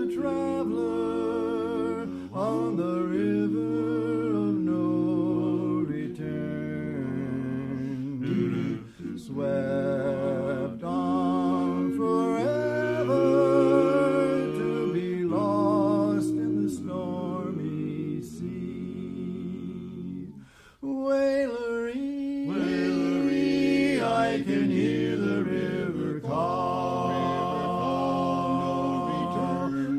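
Barbershop quartet singing a cappella, four voices in close harmony with vibrato, with a short break a little past two-thirds of the way through.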